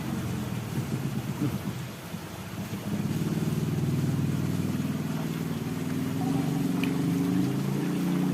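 An engine running, a low pitched drone that pulses rapidly for the first two seconds, dips, then holds steady with slight shifts in pitch.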